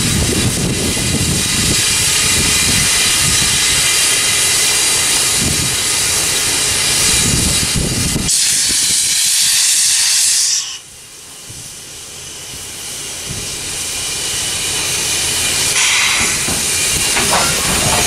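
1923 Montreal Locomotive Works 0-6-0 steam switcher standing with steam hissing steadily. Just past the middle a louder, higher hiss lasts about two seconds and cuts off suddenly. The hiss then builds up again.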